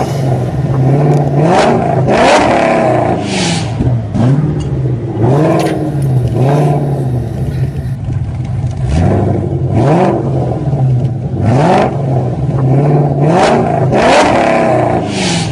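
Car engine revving over and over, its pitch sweeping up and down every second or two over a steady low hum.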